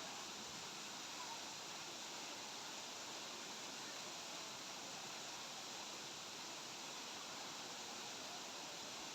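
Steady rush of a waterfall, heard as a faint, even hiss of falling water.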